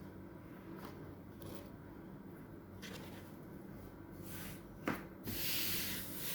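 Handling sounds, with brief rubbing and rustling strokes over a steady low hum. There is a sharp click about five seconds in, then a longer hissing rustle near the end.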